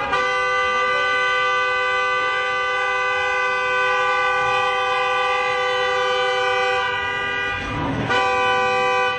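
Car horn held down in one long continuous blast, two notes sounding together, broken off briefly near the end before sounding again.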